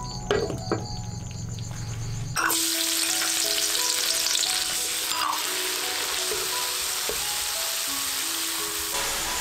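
Minced garlic sizzling in hot oil in a wok, starting suddenly about two and a half seconds in and holding steady. Later, chopped pickled mustard greens fry in the same oil while a metal ladle stirs them.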